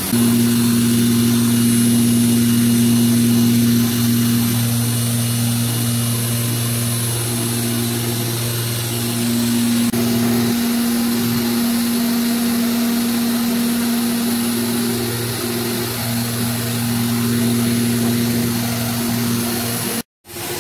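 CNC router's HSD spindle cutting grooves into a white plastic sheet, with a steady machine drone holding a strong hum. The sound cuts out for a moment near the end.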